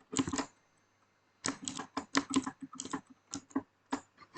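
Keys on a mechanical keyboard being pressed in quick, irregular strokes, a short flurry of clacks in the middle with a few single presses after it.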